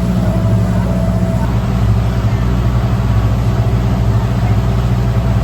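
Boat engine running steadily, heard from on board as a constant low drone with a rush of noise over it.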